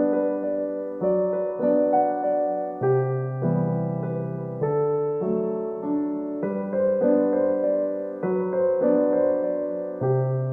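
Background music: a gentle, slow keyboard piece of sustained piano chords changing about once a second.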